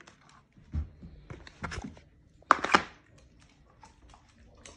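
Knocks and clatters of a plastic serving spoon and a plastic food container as dog food is dished out and set down. The loudest cluster of sharp knocks comes about two and a half seconds in, with lighter ticks before and after.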